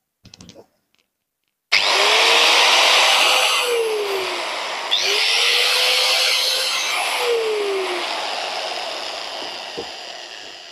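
A handheld DeWalt electric angle grinder switched on and run with no load, starting with a click and a rising whine to a steady high-speed hum. It is switched on a second time about 5 s in, then spins down slowly, the sound fading near the end.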